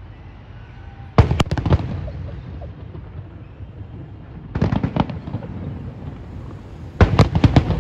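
Aerial fireworks bursting in three volleys of rapid crackling bangs: one about a second in, one in the middle, and one near the end, each a quick run of several sharp cracks.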